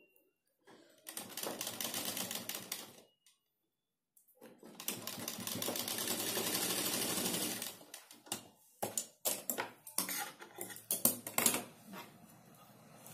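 Domestic sewing machine stitching in two runs of a few seconds each, separated by a short pause, then a string of sharp separate clicks and knocks.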